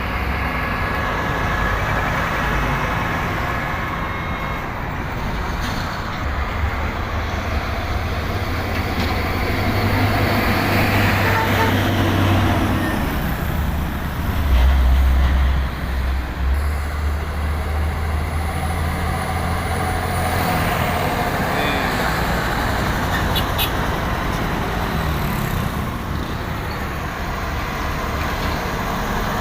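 Road traffic with heavy diesel trucks running past. One engine's low rumble is loudest about fifteen seconds in.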